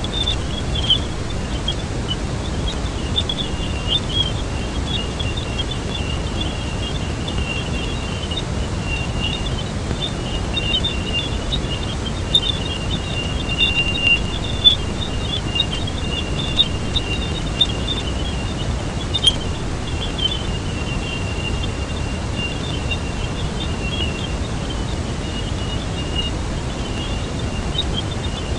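Sonified NASA space recording: a steady low rushing hiss with a thin, high, near-steady tone and a dense chatter of tiny crackling chirps on top, plus a few sharper ticks.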